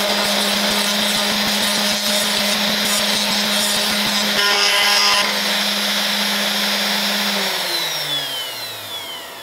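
CNC router spindle at full speed milling acrylic with a double-flute upcut bit: a steady whine over gritty cutting noise. About five seconds in the cutting noise stops, and near the end the whine falls in pitch and fades as the spindle spins down.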